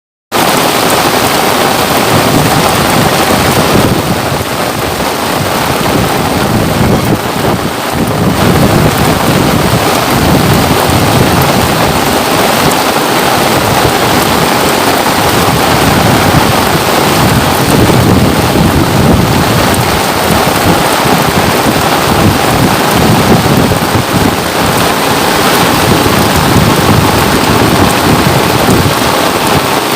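Steady rain falling, a dense, even hiss that starts abruptly and holds throughout.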